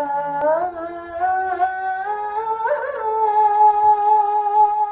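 A female singer singing an Arabic song unaccompanied, drawing out a melismatic phrase of long held notes with vibrato. The voice glides upward twice and then settles into a long held note.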